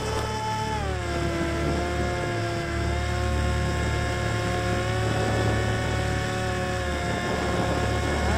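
Electric motor and propeller of a Bixler 3 foam RC plane whining in flight, the pitch dropping about a second in as the throttle is eased back, then holding steady. A low rumble of wind buffeting the onboard camera runs underneath.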